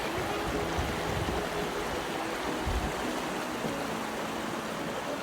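River water running with a steady rush, with a pop song playing faintly underneath.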